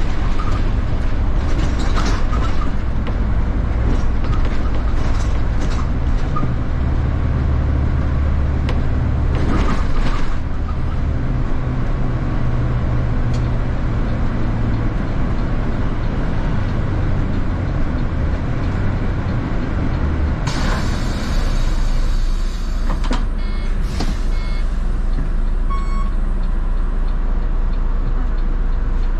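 City bus heard from inside the cabin: its engine running with a steady low rumble, and the body rattling and knocking. A few short electronic beeps sound near the end.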